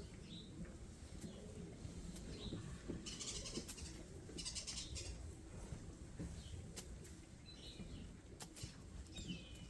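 A few faint, short bird chirps over a steady low background rumble, with two brief rustling bursts about three and four and a half seconds in.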